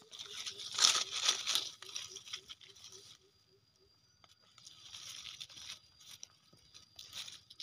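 Dry leaf litter and grass rustling and crackling as a hand digs and pulls wild mushrooms out of the forest floor. It is loudest in the first three seconds, then comes back as softer rustles twice near the end.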